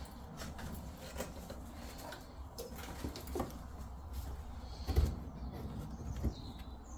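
Scattered light clicks, knocks and faint squeaks of tools and fittings being handled and put away while tidying up under a sink, with a louder knock about five seconds in and another a little after six.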